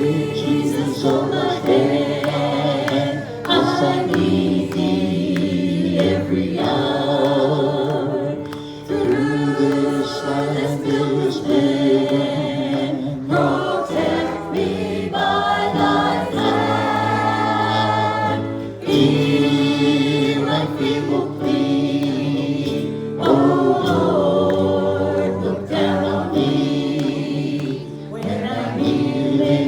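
Music: a group of voices singing a gospel worship song.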